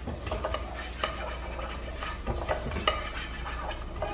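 A spoon stirring garlic, onion and colorau in oil in a pan, scraping and knocking against the pan a few times at irregular moments over a steady, gentle sizzle from a low gas flame.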